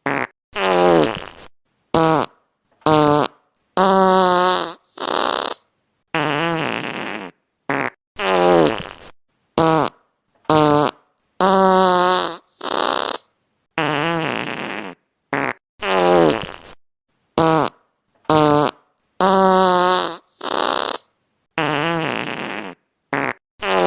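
Fart sound effects played one after another, each cut off by dead silence: short blips and longer buzzy ones, several falling in pitch. The same set of sounds comes round again about every eight seconds.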